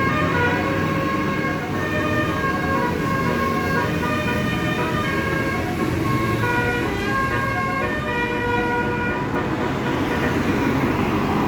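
Basuri telolet horn on a bus playing a melody of short held notes that step up and down in pitch, over the low running of the bus's engine. The tune thins out near the end.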